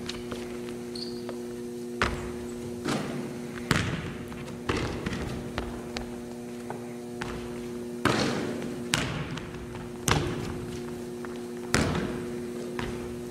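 Basketball bouncing on a hardwood gym floor: sharp, irregularly spaced bounces, each with a short echo off the hall, over a steady low hum.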